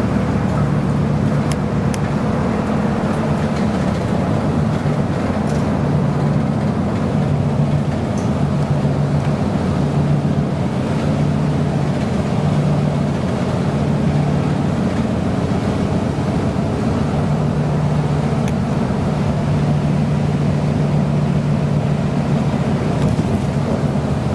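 Bus cabin noise while driving at highway speed: a steady low engine drone over constant road and tyre rumble.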